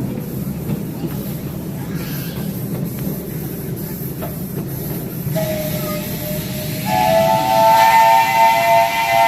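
Live steam locomotive's chime whistle blowing, first a single low note about halfway in, then a louder chord of several notes held from about three-quarters in, over the steady rumble of the train rolling along the track.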